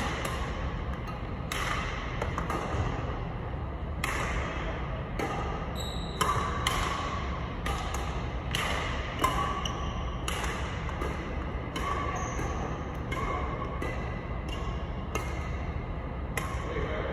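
Badminton rally: rackets strike a shuttlecock about once a second, each sharp hit echoing through a large sports hall. A steady low ventilation hum runs underneath.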